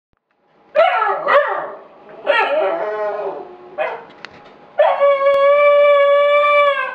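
Howling: a few short wavering howls, then one long steady howl held for about two seconds near the end.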